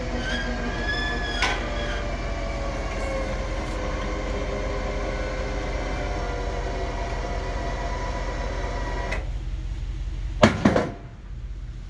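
Electric hydraulic pump of a truck-mounted lift gate running steadily under the load of a 48-inch Exmark zero-turn mower, its whine sinking slightly in pitch as it lifts. The pump cuts off about nine seconds in, and a second later there are two loud metal clanks.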